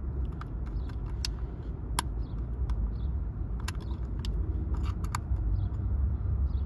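Scattered light clicks and taps as the small parts of a door lock actuator are handled to take out its replacement 12 V DC motor, over a steady low rumble.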